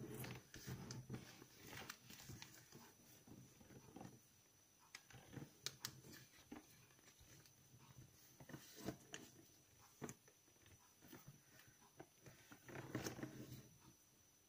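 Faint rustling and crinkling of a sheet of origami paper being handled, folded and creased by hand. It comes in scattered soft bursts with a few sharp crackles, busiest near the start and again near the end.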